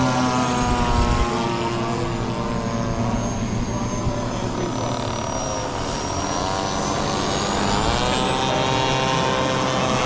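Radio-controlled model aircraft engines running: a model turbine jet's thin high whine mixed with the buzzing note of a propeller model flying overhead. The engine pitch slides about, rising about seven seconds in.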